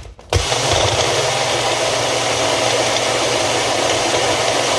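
Bullet-style personal blender running steadily, its motor churning frozen berries, ice and spinach with a rattle, after a couple of knocks at the start.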